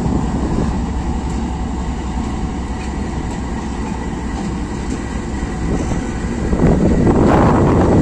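Pakistan Railways passenger coaches of a departing express rolling slowly past, their wheels running over the rails in a steady rumble that grows louder near the end. Strong wind rumbles on the microphone underneath.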